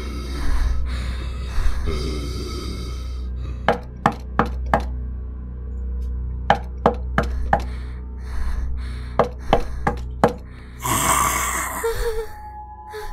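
Sharp knocks in three quick groups of four, over a low droning horror music bed. A sharp, breathy gasp comes near the end.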